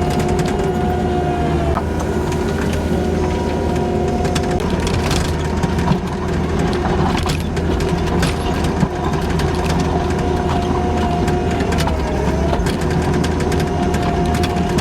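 Kubota SVL90-2 skid steer's diesel engine running under load, with a hydraulic whine that wavers and dips in pitch. Scattered cracks and crunches come from dirt and debris being pushed.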